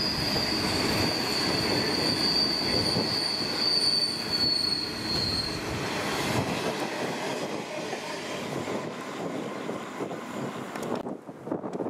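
Black grain hopper wagons of a freight train rolling past, with a steady high-pitched wheel squeal over the rumble of the wheels. The squeal stops about halfway, the rumble fades as the last wagon goes by, and the sound cuts off abruptly near the end.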